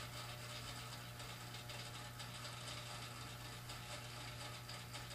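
Faint steady low hum with an even hiss over it and no distinct events: background room tone.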